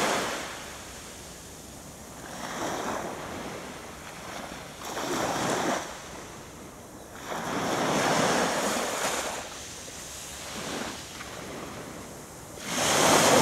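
Small sea waves breaking and washing up on a sandy beach, a swell of surf every two to three seconds, the loudest near the end.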